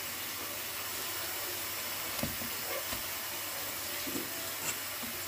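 Lamb, onions and chopped tomatoes sizzling in a pot with a steady hiss, and a few soft clicks of a spoon against the pot.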